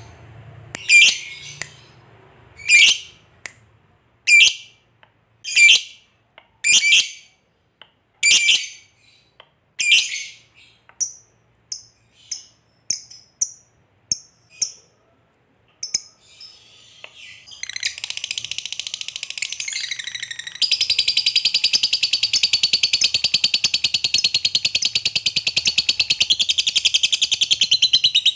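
Masked lovebird calling: sharp, shrill single calls about every second and a half, then quicker, softer chirps. At about 18 s it breaks into a long, continuous rapid chattering trill (the lovebird's 'ngekek'). The trill gets louder a couple of seconds later and is still going at the end.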